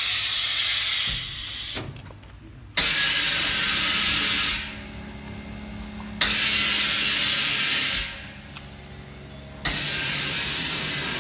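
Vacuum membrane press running: air hisses in bursts of about two seconds, each opening with a sharp click, about every three and a half seconds, over a steady low hum.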